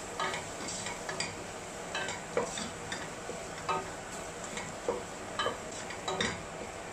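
Wooden spatula stirring onion-tomato masala in a stainless steel pot, with irregular scrapes and knocks against the metal over a steady sizzle. The spice powders are frying in the oil, which sticks quickly if not kept moving.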